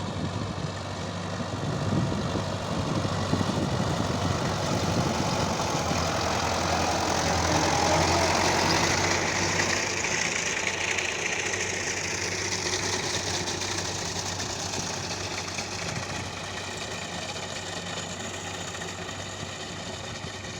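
Engine of a reaping machine running steadily while cutting grass. It grows louder toward the middle, as if passing close, then eases off.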